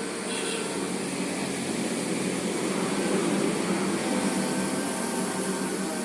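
A motor running steadily with a hum of several steady tones, growing a little louder around the middle.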